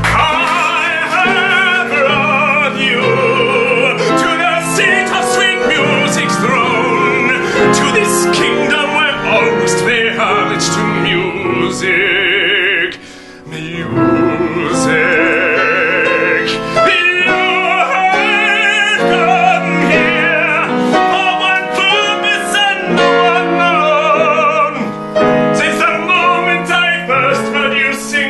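A woman and a man sing an operatic, musical-theatre style duet with strong vibrato and long held notes, over an instrumental accompaniment. The music breaks off briefly about thirteen seconds in.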